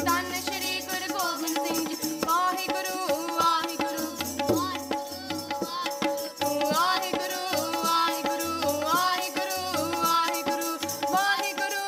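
Gurbani kirtan: young voices singing a shabad over a harmonium's held chords, with tabla strokes keeping a steady rhythm.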